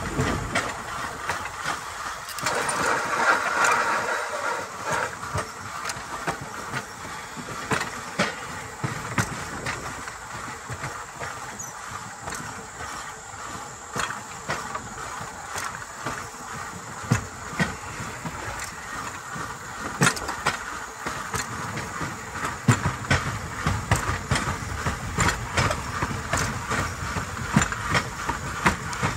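Steel wheels of a pedal-powered rail bike rolling along old railroad track: a steady rumble with frequent sharp clicks and clacks, and a louder hiss about two to five seconds in.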